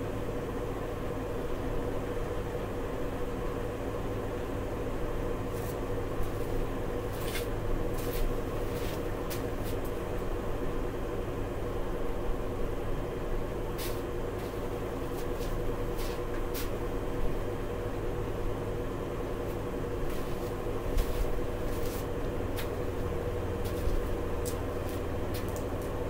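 Steady machine hum, with a strong tone near 500 Hz over a low rumble, and scattered light clicks and taps, more of them in the second half.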